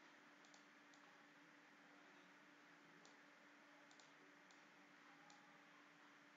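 Near silence, with a handful of faint computer mouse clicks scattered irregularly over a faint steady electrical hum.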